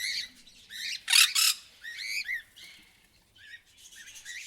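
Sun conures calling: a run of shrill, arching squawks with a loud harsh screech about a second in, then a short lull and a few quieter chirps near the end.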